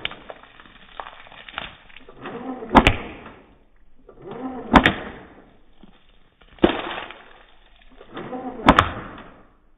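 Airsoft M4 electric gun shots slowed down for slow-motion playback. Four shots about two seconds apart, each a swelling whir that ends in a sharp crack.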